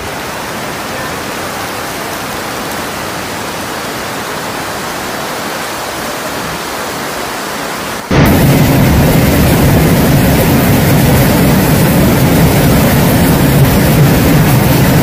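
Floodwater rushing, a steady noisy rush. About eight seconds in it cuts to a louder, deeper rush with heavy low rumble, from a muddy flood torrent.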